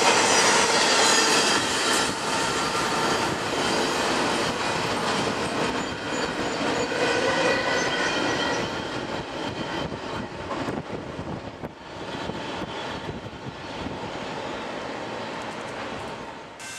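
Trailer-on-flatcar freight train rolling past, with wheel and rail noise and several steady high-pitched wheel squeals. The noise fades over the second half as the last car passes and the train moves off.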